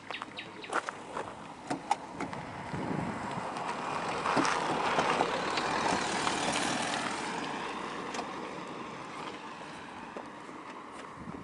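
A vehicle driving past: its noise swells to a peak about halfway through and then fades away. A few sharp clicks come in the first two seconds.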